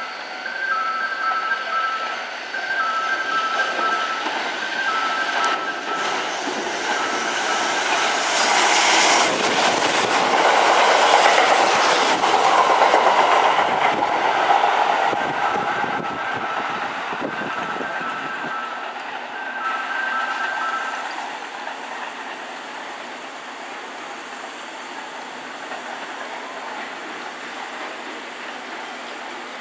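Kintetsu 12200 series limited-express electric train passing through a station at speed without stopping. Its rush of wheel and motor noise builds, is loudest about ten to thirteen seconds in, and clatters over the rail joints as the cars go by before fading away. A two-tone warning signal repeats about once a second and stops about twenty-one seconds in.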